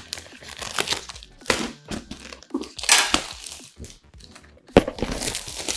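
A cardboard box and its packaging being opened and handled: irregular crinkling and rustling, with a longer rustle about three seconds in and a sharp knock near the end.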